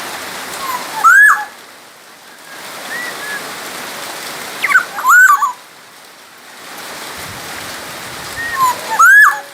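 Black-naped oriole singing: three loud, fluty whistled phrases about four seconds apart, with softer short whistles between them, over a steady hiss like running water.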